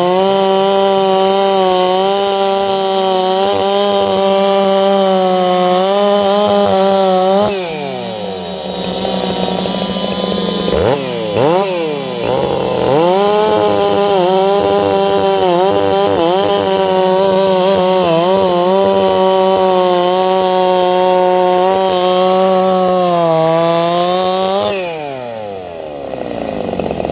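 Two-stroke chainsaw running at full throttle. About seven seconds in it drops off, is revved up and down a few times, then holds high again before falling away near the end.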